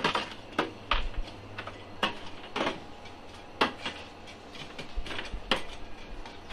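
Lumps of charcoal raked and stirred with a long-handled metal scoop inside a metal charcoal stove, to readjust the heat: a series of irregular sharp clinks and knocks, about eight, as the scoop strikes the coals and the stove's rim.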